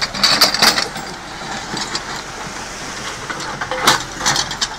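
Backhoe loader's diesel engine running steadily while it digs rock and earth, with bursts of clattering and knocking in the first second and again near the end.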